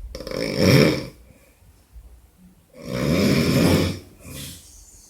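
A drunk man snoring loudly: two long, rough, rattling snores about three seconds apart, each lasting about a second, with a shorter, softer one near the end.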